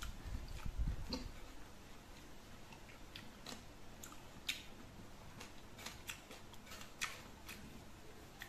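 Close-up chewing of soft fruit: a run of small wet clicks and smacks from the mouth, irregular and a few a second, with a low rumble in the first second or so.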